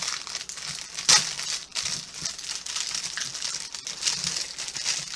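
Crinkly plastic packaging of a squishy toy being handled and pulled at while someone tries to get it open, with a sharp loud crackle about a second in.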